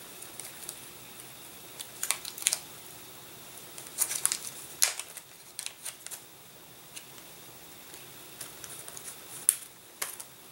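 Small clear plastic zip-lock bag being handled, with irregular crinkling and crackling. A few sharper snaps come about two seconds in, around the middle, and near the end.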